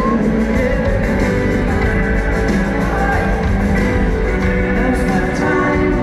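Live rock band playing, recorded from the audience in a large hall: a full band with acoustic guitars and a singing voice.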